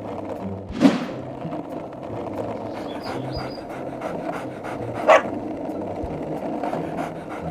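Cartoon dog vocal sounds, with two short, sharp dog sounds about a second in and about five seconds in, over light background music with a steady beat.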